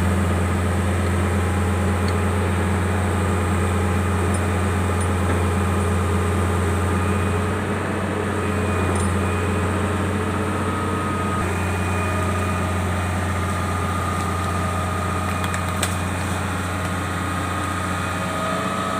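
Excavator's diesel engine running steadily with a low, even drone.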